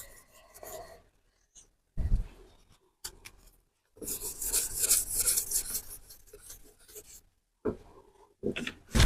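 Hand wet-sanding with 1500-grit wet-and-dry sandpaper, a scratchy rubbing in stretches of back-and-forth strokes, longest about four to seven seconds in, with a low knock about two seconds in.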